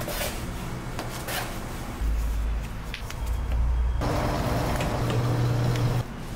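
Steady motor hum and rumble of a dough sheeter running its rollers, with the sound changing abruptly about two and four seconds in and dropping back near the end.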